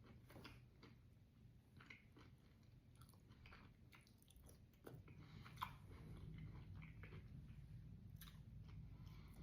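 Faint close-up chewing of a bite of chamoy pickle loaded with crunchy chip toppings: soft wet crunches and mouth clicks, with one sharper click about halfway through.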